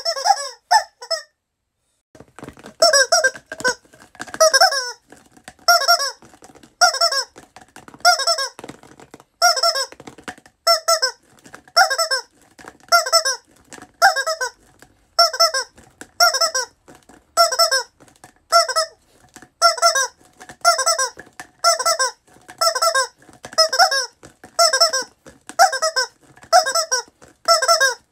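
Squeaky rubber toy squeezed over and over in a steady rhythm, about one honking squeak a second, each squeak bending slightly in pitch, after a short pause about a second in.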